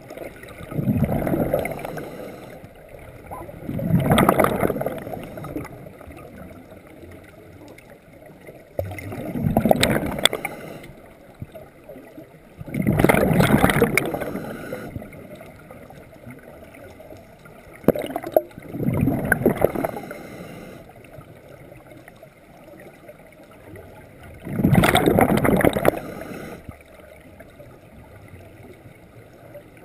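Scuba diver breathing through a regulator underwater: six loud rushes of exhaled bubbles, each lasting one to two seconds and coming a few seconds apart, with quieter noise between breaths.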